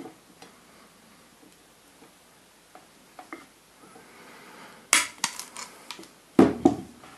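Pliers and a steel fishing hook handled while stainless steel wire is twisted around the hook's eye: small metallic clicks and scrapes, a few sharp clinks about five seconds in, and a louder knock about six and a half seconds in.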